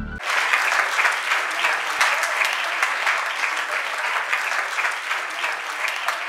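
Audience applauding, a dense steady clapping that starts abruptly a moment in as the music cuts off.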